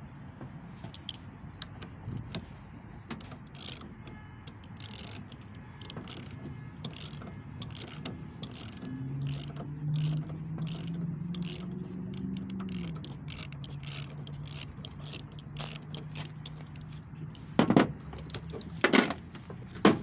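Ratchet wrench clicking over and over as it turns the forcing screw of a gear puller on a driveshaft. Two loud metal knocks come near the end.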